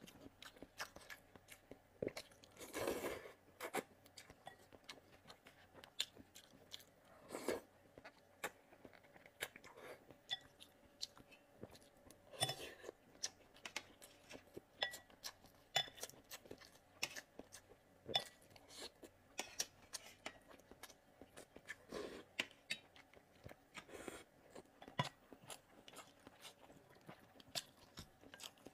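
Close-miked eating of spicy glass noodles: wet chewing with rapid mouth clicks and lip smacks throughout. A few short slurps stand out, the loudest about three seconds in and another near seven and a half seconds.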